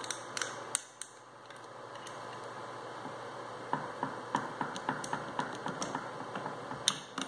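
Metal parts of a Mitsubishi starter motor clicking and ticking as the motor yoke is twisted and worked loose from its gear housing. There are a few sharp clicks near the start, then a fast, irregular run of light ticks from about halfway, ending in a louder click.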